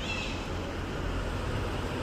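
Steady road traffic noise, with a brief high chirp just after the start.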